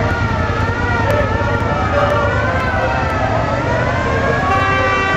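Cars in a slow convoy, their engines running under a wavering, siren-like tone that rises and falls; about four and a half seconds in, a steady car horn starts sounding.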